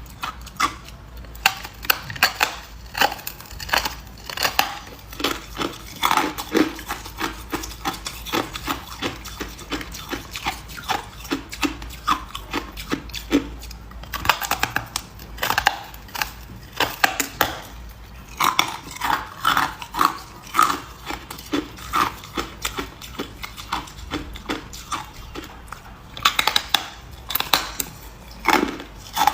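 Ice being chewed and crunched between the teeth: irregular crisp cracks and crunches, several a second, coming in busier clusters with short lulls between them.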